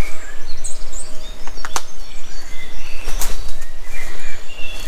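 Outdoor ambience: small birds chirping in short calls over a steady low rumble, with a few sharp clicks about a second and a half in and again after three seconds.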